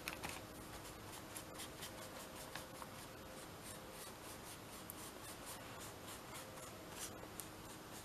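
Paintbrush stroking and dabbing matte medium over a paper napkin glued to a journal page: faint scratchy rubbing with small scattered ticks.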